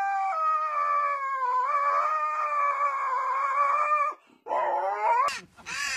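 Husky howling: one long howl held about four seconds, wavering slightly in pitch, then after a short break a second, rising howl. Near the end a short burst of other noise cuts in.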